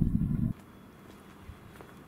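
A low rumble that cuts off abruptly about half a second in, then a few faint footsteps on the platform paving.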